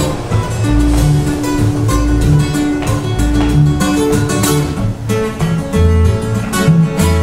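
Two acoustic guitars playing an instrumental break: a steady bass beat of about two notes a second under higher picked and strummed notes, one note held for several seconds near the start.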